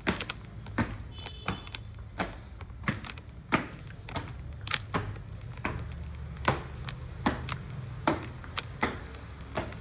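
Irregular sharp taps and clicks, about one or two a second, over a low steady hum.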